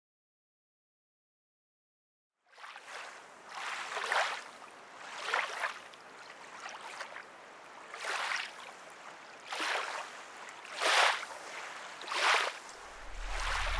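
Silence for the first couple of seconds, then small waves washing in, one swell about every second and a half over a soft steady wash of water. A low drone comes in near the end.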